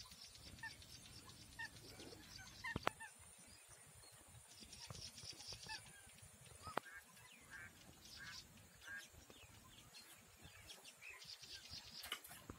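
Faint distant bird calls: short chirps scattered through, with two sharp clicks.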